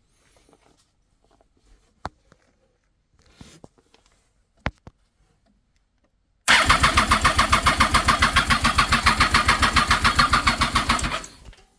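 Triumph Daytona 675's electric starter cranking the three-cylinder engine for about four and a half seconds in a fast, even pulsing rhythm, starting about six and a half seconds in. The engine turns over without firing because the fuel injectors are out on the bench, fed from a syringe, and it stops before the end. A few faint clicks come before the cranking.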